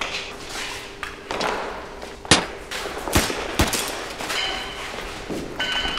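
Gunfire in a shootout: about six sharp handgun shots at irregular intervals, the loudest about halfway through, each ringing on in a reverberant concrete space.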